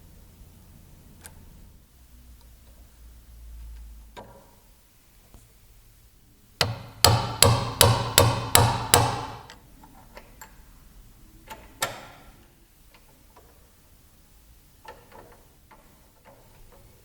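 A quick run of about seven hammer strikes, roughly four a second, with a few lighter knocks and taps of handling before and after.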